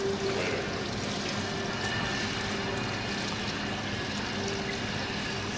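Steady workshop background noise with a low machine hum.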